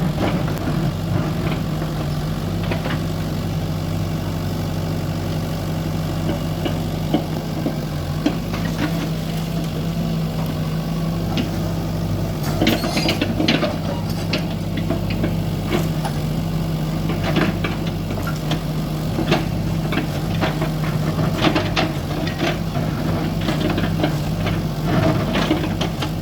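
Excavator's diesel engine running steadily at an even, low pitch, with short knocks and clatter scattered throughout while it loads soil into a truck; the sharpest burst comes about 12 to 13 seconds in.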